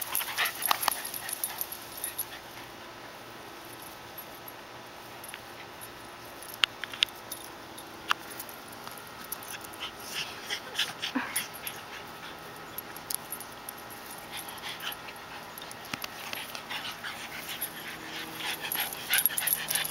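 Two small pug-type dogs making faint, scattered whimpers and small dog noises while playing and being petted, with a few sharp clicks in between.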